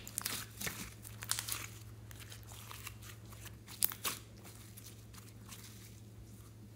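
Red glitter slime squeezed and stretched by hand, giving sticky crackling and popping as air pockets burst. There is a cluster of crackles in the first second and a half and another about four seconds in, then it goes quieter.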